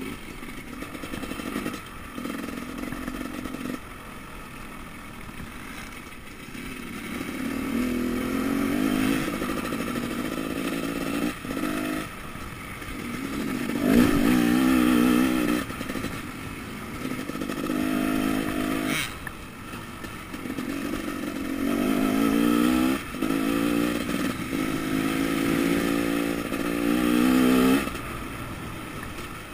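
Enduro motorcycle engine heard from on board, revving up and down on a dirt trail. Its pitch climbs repeatedly and drops off as the throttle is closed, loudest about halfway through, with a single sharp knock a few seconds later.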